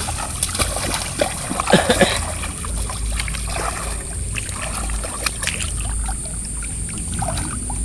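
Hands splashing and sloshing in shallow muddy floodwater while groping under a cast net for trapped fish, with a burst of sharper splashes about two seconds in. A steady high whine runs underneath.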